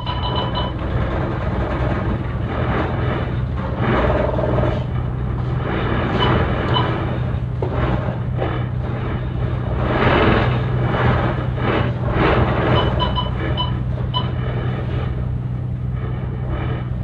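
Ship's engines running with a steady low drone as the ferry gets under way, under repeated surges of rushing noise, with a few short high beeps near the start and again about two-thirds of the way in.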